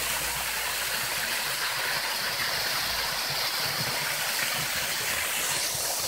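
Small waterfall splashing down a rock face: a steady, even rush of falling water.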